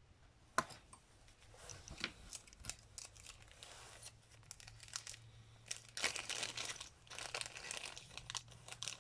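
Packaging crinkling and rustling as small parts are taken out of a carburetor rebuild kit, with a few sharp clicks in the first seconds and denser crinkling in the second half.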